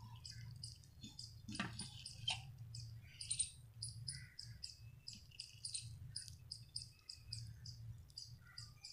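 Crickets chirping steadily in the background, about four chirps a second, over a low steady hum. A knife cuts through an omelette and scrapes on a ceramic plate around two seconds in and again a little after three seconds.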